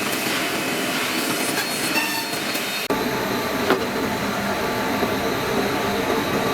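CNC six-side panel drilling machine running: a steady mechanical whir and rattle with occasional sharp clicks. The sound changes abruptly about three seconds in.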